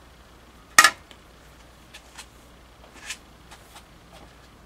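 Digital readout scale being lifted off a Bridgeport milling machine table: one sharp knock about a second in, then a few faint clicks of handling.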